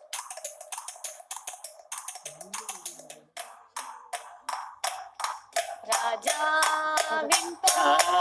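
A foley artist making sound effects: a rapid, irregular run of sharp taps and clicks, joined about six seconds in by a high, wavering voice-like sound over the tapping.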